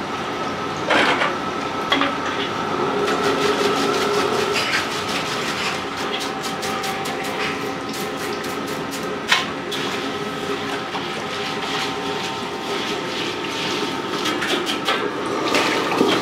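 Metal ladle clattering fast and rhythmically against a wok during wok cooking, over a steady kitchen hum, with one louder knock about nine seconds in.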